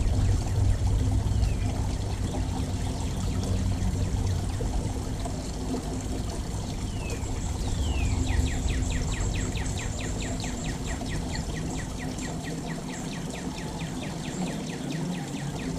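Water steadily pouring and trickling. A songbird gives a couple of falling whistled notes about seven seconds in, then a fast run of short falling notes, about six a second, for roughly seven seconds.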